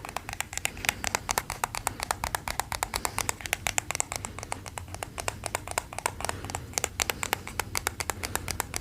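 Rapid, light tapping on the case of a pair of wireless headphones: a quick, uneven run of many small clicks.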